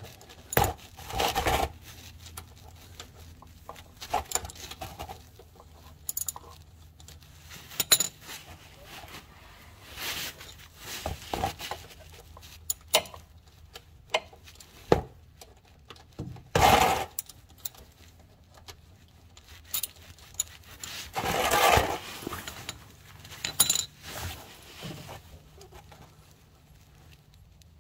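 A socket ratchet and extension clicking, clinking and scraping against metal while the 10 mm bolts on an engine's oil screen cover are loosened. The sound comes in scattered sharp clicks and short rattling runs, with the longest, about a second each, near the middle and about three quarters of the way through.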